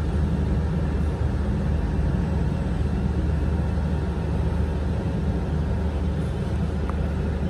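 Steady drone of dense city street traffic, mostly motorbikes, with no distinct horns or other single events standing out.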